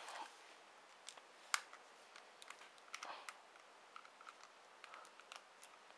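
Faint, scattered clicks and taps of a Nokia 5800 XpressMusic phone's plastic casing being handled, with one sharper click about a second and a half in.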